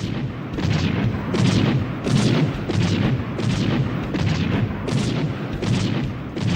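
Anime weapon sound effect from Neon Genesis Evangelion: a rapid, regular series of gunfire-like blasts, about one and a half a second, over a continuous low rumble. It starts abruptly.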